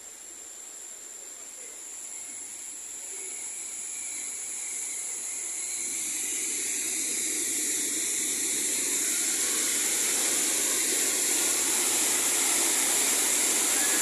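Rushing water of the Düden waterfall heard from the rock cave passage behind it: a steady, even rush that grows steadily louder as the falls come nearer.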